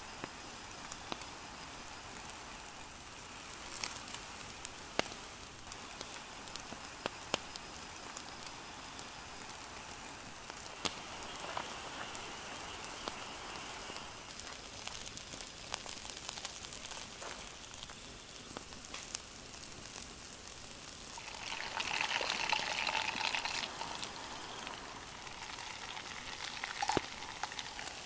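Beef steak sizzling on a wire grill rack over a charcoal fire: a steady hiss broken by scattered sharp pops and crackles. The sizzle swells louder for a couple of seconds about three-quarters of the way through.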